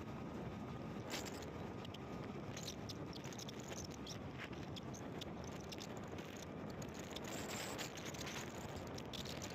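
Steady road and tyre noise of vehicles driving on a highway, with many short scrapes and clicks through it.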